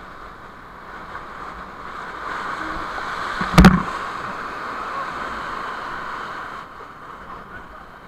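Steady rush of a white-water rapid on the Ganges around a rafting raft. About three and a half seconds in, a sudden loud slap of water as a wave crashes over the raft and the camera; the higher part of the rush drops away near the end.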